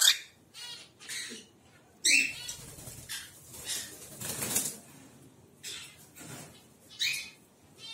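Cockatiel perched on a hand giving a string of short, harsh chirps and squawks, roughly one every half second to second, with a longer noisy burst near the middle.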